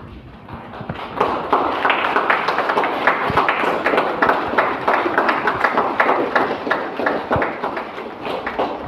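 A congregation applauding: many hands clapping together, swelling in about a second in and easing off toward the end.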